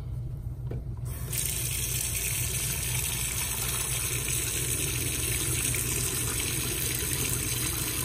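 Kitchen faucet turned on about a second in, its stream running steadily into the garbage disposal drain of a stainless steel sink to rinse out the baking soda and vinegar. A steady low hum sits underneath.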